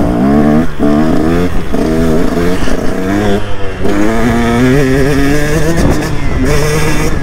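2022 KTM 125 SX two-stroke single-cylinder motocross engine revving hard under a rider. Its pitch climbs and drops again and again as the throttle is worked and the gears are changed.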